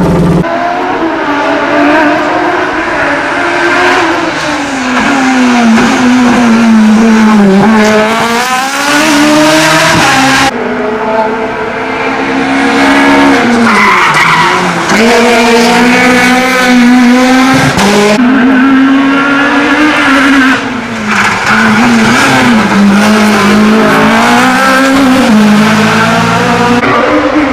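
Hillclimb race car engines revving hard, the note climbing and falling repeatedly through gear changes and lifts, with tyre squeal. The sound changes abruptly about ten seconds in and again about eight seconds later.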